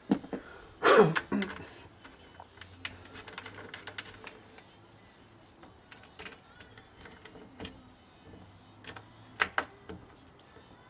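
Irregular clicks and knocks of hand tools and parts while the cooling fans are bolted onto a radiator, with a louder scrape about a second in and a few sharp clicks near the end.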